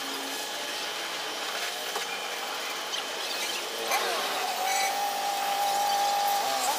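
Water spray hissing steadily against the motorcycle during washing, with a steady mid-pitched tone joining about four and a half seconds in.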